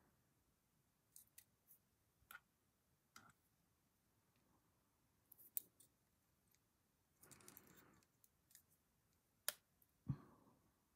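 Near silence broken by scattered small clicks and taps from pliers and fingers handling a small lead cradle frame as it is being straightened, with a brief soft rustle.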